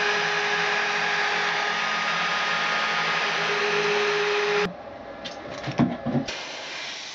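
Desktop CNC milling machine's spindle motor running steadily, a whine over a hiss, cutting off abruptly about two-thirds of the way in. A few faint knocks follow, then a quieter steady hiss.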